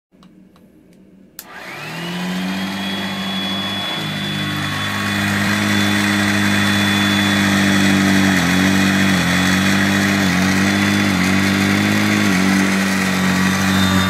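Hoover Junior 119 upright vacuum cleaner switched on with a click about a second and a half in, its motor winding up to a steady high whine. Its pitch dips briefly several times as it works over the carpet. The roller bearings are freshly refurbished.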